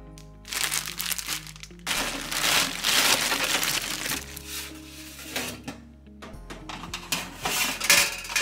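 Background music over the crinkling of a plastic bag of frozen crinkle-cut fries as it is poured out, with the fries rattling onto a metal mesh air fryer tray.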